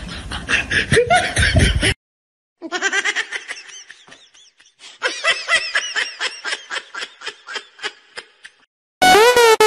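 Laughter in long runs of quick, high-pitched giggles. It breaks off sharply at about two seconds, then comes back in two stretches. Loud music cuts in near the end.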